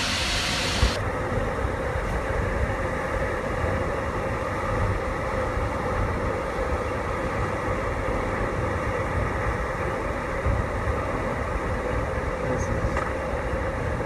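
Seljalandsfoss, a waterfall of about 60 m, pouring down, heard from just behind its falling curtain: a steady, loud rush of water that does not let up.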